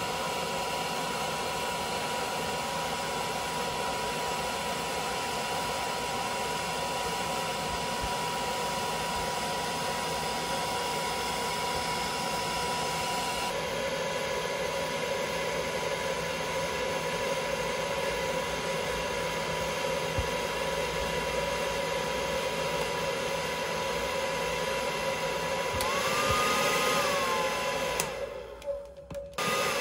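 Handheld hair dryer running steadily and blowing into a pet carrier, a constant rush of air with a steady motor whine. Near the end it rises slightly, drops out briefly, then starts again.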